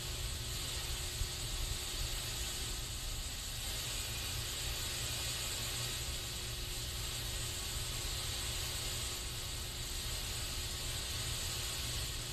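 Aerosol spray can hissing in one continuous, even spray with no pauses, over a low rumble.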